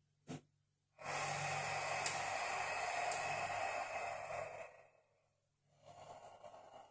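A man's long, forceful exhale through the mouth, lasting nearly four seconds, as he holds a 90/90 hip stretch under effort; a softer breath begins near the end. A brief click comes just before the exhale.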